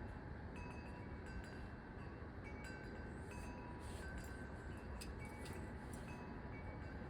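Wind chimes struck at irregular moments by the wind, several pitched notes ringing and overlapping, over a steady low rumble of wind.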